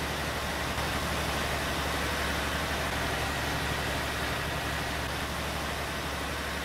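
Caterpillar marine diesel engine running steadily in a riverboat's engine room: a continuous low drone with a faint high whine, a little louder about a second in.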